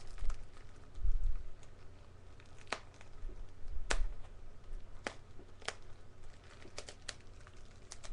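Plastic packaging being handled and worked open by hand: light crinkling with about eight sharp clicks scattered through the second half, and a few low bumps of handling.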